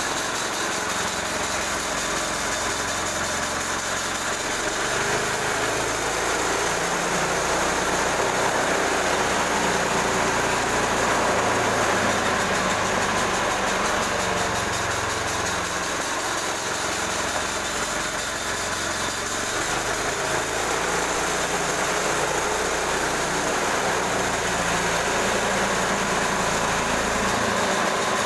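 Engine of a portable bandsaw mill running steadily at a constant speed.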